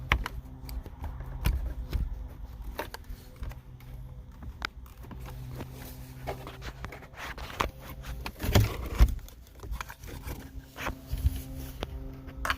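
Scattered clicks and scrapes of a flathead screwdriver and hands working the plastic tabs of a dashboard climate-control switch to release it, over a steady low hum.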